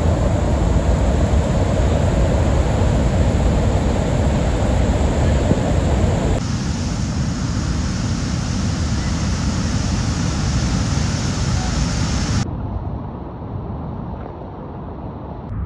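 Steady roar of Victoria Falls: falling water and spray, heaviest in the low rumble. The sound changes abruptly about six seconds in, and again a little after twelve seconds, where it thins out and grows somewhat quieter.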